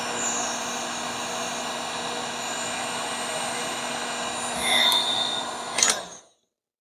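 Electric heat gun blowing steadily while it shrinks and melts a heat-shrink solder splice on a wire. A click about six seconds in, and the blowing stops.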